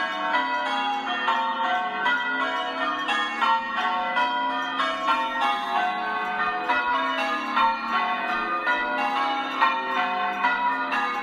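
Church bells rung in changes: a steady, even stream of strikes, several a second, each bell ringing on into the next.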